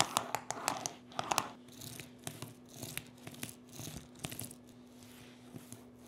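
Small robot-vacuum wheels rolled by hand over uneven tile and grout: the original hard plastic wheel clatters with loud rapid clicks over the bumps for the first second and a half, then softer 3D-printed wheels roll with fainter clicks, and near the end the soft silicone wheel is barely heard.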